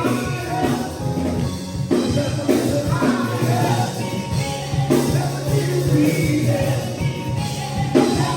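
Gospel music: voices singing over a band with bass and drums, with strong drum hits about every three seconds.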